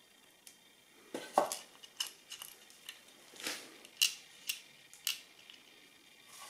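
Softwood timber blocks knocked and set down on a wooden board, with light metallic clinks as a steel washer and nut go into a drilled hole: a string of separate knocks and clicks, loudest about a second and a half in and again about four seconds in.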